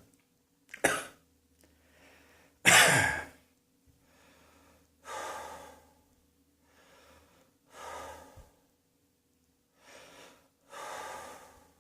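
A person coughs twice, a short cough about a second in and a louder one near three seconds, then breathes audibly in and out about five times, a second or two apart.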